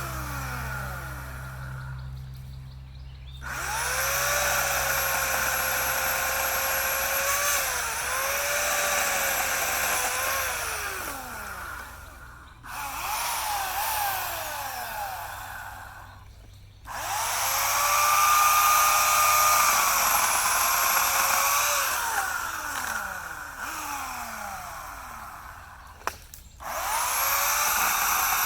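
Homelite 16-inch corded electric chainsaw run in bursts: the motor whines up to speed, holds with brief drops in pitch as it takes load, then winds down with a falling whine each time the trigger is released, about four times.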